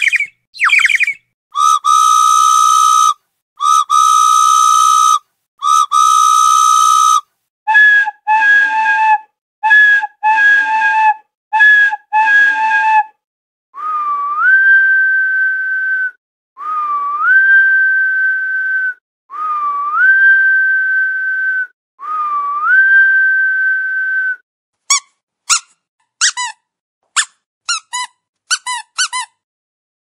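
A sequence of whistle-like sound effects, each separated by silence. It begins with a few quick chirps, then three long, steady, buzzy tones. A run of short two-note beeps follows, then four long tones that each swoop upward and hold. It ends with a burst of rapid chirps.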